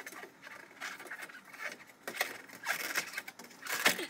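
Sheet-metal cover of a fluorescent light fixture being worked loose by hand to reach the ballast: scattered clicks, taps and scrapes of metal, with the loudest knock near the end.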